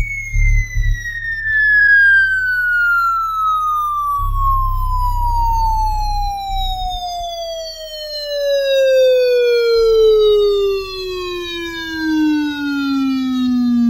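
DJ sound system playing a sound-check track: a single long electronic tone sliding steadily downward from high to low pitch, like a falling siren. Heavy bass thumps sit under it near the start and again from about four to seven seconds in.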